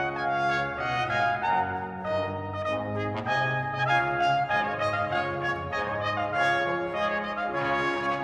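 Background music led by brass instruments, a melody of held and moving notes.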